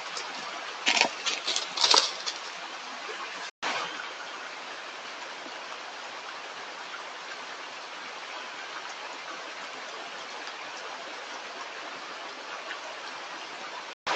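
Stream running steadily, with a short run of sharp knocks or splashes between about one and two seconds in. The sound drops out completely for an instant twice.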